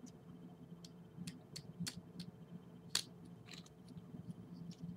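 Light, scattered metal clicks of a small flat-bladed screwdriver pushing the trigger connector out of a Glock 23's frame, with one sharper click about three seconds in.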